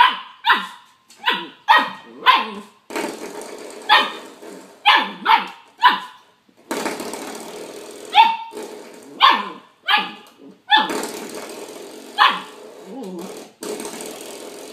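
A small dog barking: about fifteen short, sharp barks in irregular clusters, with brief pauses between groups.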